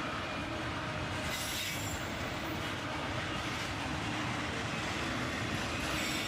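Freight train cars rolling past: a steady rumble of steel wheels on rail, with a faint high squeal of wheels between about one and two seconds in.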